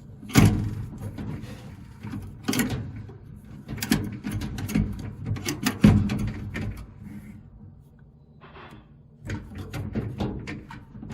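Scattered knocks, clicks and rubbing from hands working the drive belt and idler pulley spring into place inside a Samsung clothes dryer's cabinet, with two louder knocks, one just after the start and one about six seconds in.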